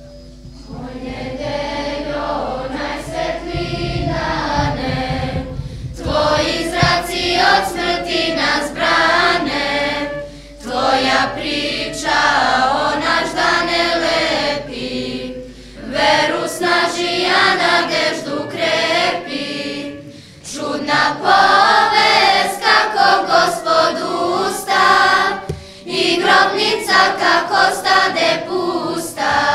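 Church choir singing a religious song in phrases of a few seconds, with short pauses between the phrases.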